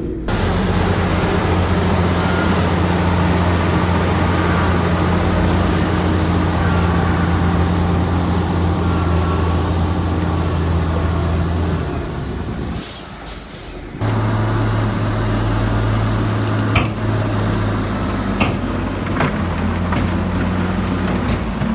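Heavy diesel engine of earthmoving machinery running steadily under load. It drops away briefly about twelve seconds in, then runs on at a slightly higher pitch, with a few sharp knocks in the last few seconds.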